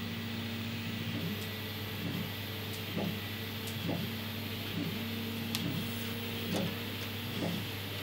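Soft clicks and taps, about one a second, as a flat SATA power cable is handled and pushed between other cables and the metal frame inside a PC case, over a steady low hum.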